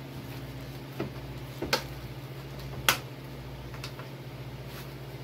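Deli paper and a plastic bag being unwrapped and handled: a few separate sharp crinkles and clicks, the loudest about three seconds in, over a steady low hum.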